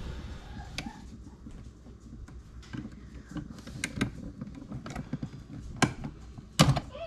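Scattered light clicks and taps of a screwdriver and screw working at an electrical switch box, with a sharper double knock near the end. The screw is being driven into a stripped hole that will not catch.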